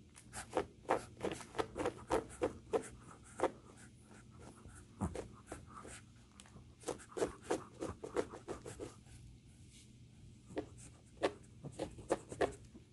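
Shih Tzu puppy's claws scratching and digging at a shaggy carpet, in quick runs of strokes broken by a couple of short pauses.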